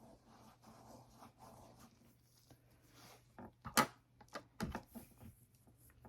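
Faint scrubbing of an alcohol swab over the skin of the injection site, followed a little after halfway by one sharp click and several lighter clicks and taps as supplies are handled.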